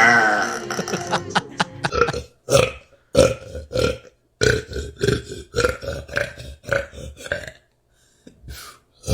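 A woman burping over and over. A long wavering burp trails off, then comes a quick series of short burps, about two a second, with a couple of fainter ones near the end.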